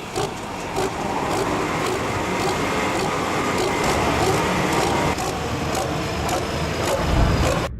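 Farm pulling tractor's engine running hard under full load, dragging the weight sled down the track, with a loud surge just before the sound cuts off abruptly near the end.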